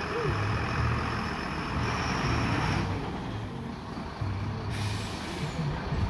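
Fire engine's diesel engine running as the truck pulls out of the station bay, with a short burst of air hiss about five seconds in, typical of its air brakes as it stops.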